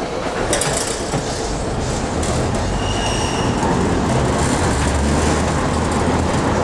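Peter Witt streetcar running along the track, heard from inside the cab: a steady rumble of wheels and running gear, with a low motor hum building from about two seconds in as the car takes power, and a brief high wheel squeal about three seconds in.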